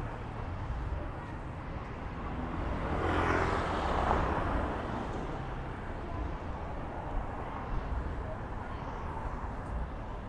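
Road traffic: a steady low rumble of cars and motorbikes, with one vehicle passing close by and loudest about three to four seconds in.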